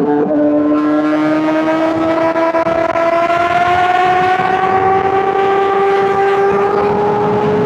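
Honda CBR600RR inline-four engine running at high revs. Its pitch dips and jumps back right at the start, then climbs slowly and steadily as the bike accelerates.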